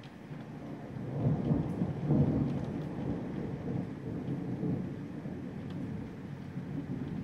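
Thunder rumbling: a low rumble swells about a second in, peaks around two seconds in, then rolls on more quietly.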